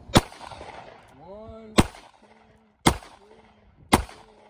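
Ruger LCR 9mm revolver fired four times, double action, shots roughly a second apart with a slightly longer gap after the first.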